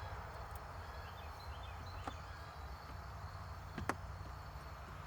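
A few light clicks of screws being set into the dash mount, the sharpest nearly four seconds in, over a steady low hum.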